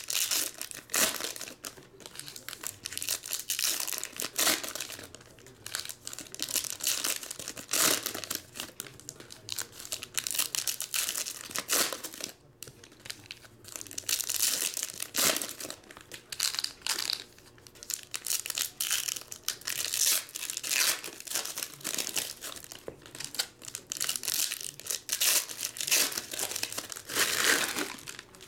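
Foil trading-card pack wrappers crinkling and tearing as they are opened by hand, one pack after another, in irregular bursts of crackling with short pauses between.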